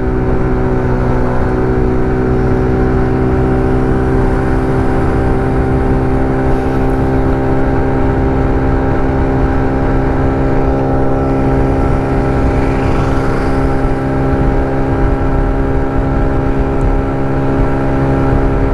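TVS XL100 moped's single-cylinder four-stroke engine running at full throttle at a steady pitch, cruising at about 55 km/h.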